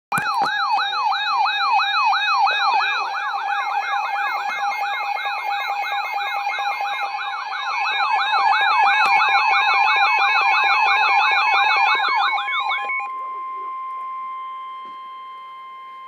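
NOAA weather radio receivers sounding their alert for a severe thunderstorm warning: a fast-repeating rising siren, about three to four sweeps a second, layered with beeping and steady tones. It cuts off about 13 seconds in and gives way to a single steady tone, the weather radio's warning alert tone.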